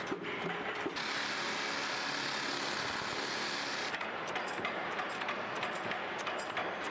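Cutlery factory machinery running. A steady machine hum gives way about a second in to a dense, even hiss, and from about four seconds in there is rapid metallic clicking and clattering as stainless steel spoon blanks are fed through a rolling machine.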